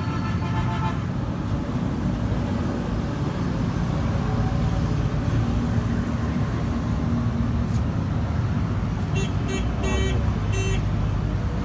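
Steady motor-vehicle rumble with a vehicle horn beeping in several short toots about nine to eleven seconds in.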